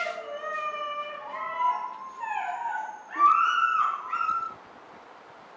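Dogs howling and whining in long, wavering, overlapping cries. They are loudest about three seconds in and stop suddenly about four and a half seconds in.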